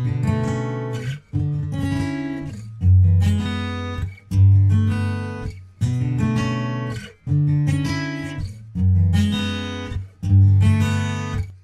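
Background music: acoustic guitar strumming chords, a new chord struck about every second and a half.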